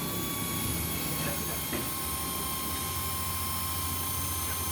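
Modified electric drill running steadily as it spins an engine valve against its seat in the cylinder head, lapping the valve in. The low hum grows fuller about three seconds in.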